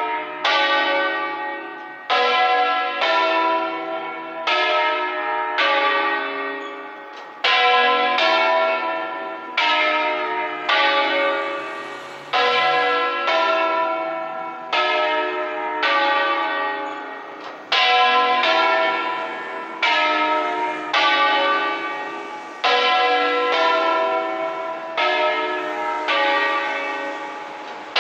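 Church bells of the San Martino bell tower in Tribano ringing a continuous peal: a new stroke about every three-quarters of a second, each stroke ringing out and overlapping the next.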